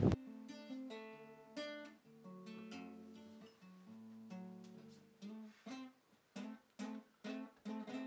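Acoustic guitar played solo: single notes picked and left to ring for the first few seconds, then short, clipped strummed chords about two a second near the end.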